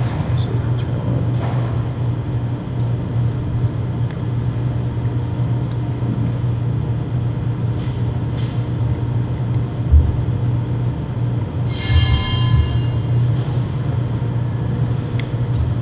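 Steady low machine hum. About twelve seconds in, a short bright ring with many overtones sounds once and fades within about a second.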